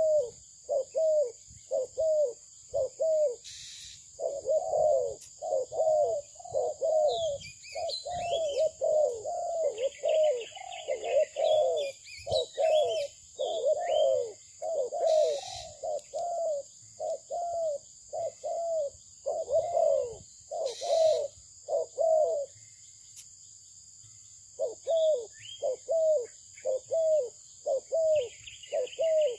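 Spotted dove (terkukur) cooing in a long series of short, evenly spaced low notes, about one or two a second. It breaks off for about two seconds some 22 seconds in, then resumes. Small birds chirp faintly in the background.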